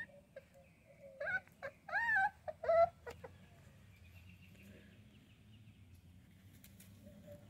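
Puppies whining and whimpering: a quick run of short, high-pitched cries from about a second in, lasting about two seconds.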